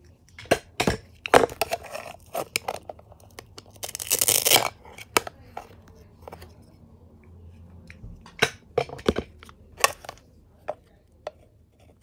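Velcro-joined plastic toy fruit being handled and cut on a plastic toy cutting board: a series of sharp plastic clicks and knocks, with one brief velcro rip about four seconds in and more scattered taps later.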